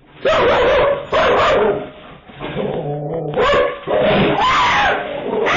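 A dog barking and yelping in a run of loud barks, heard through a doorbell camera's microphone.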